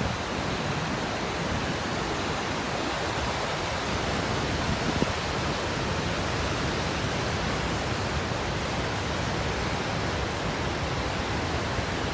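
Gullfoss, a two-step waterfall on the Hvítá river, its falling water making a steady, even rush of noise.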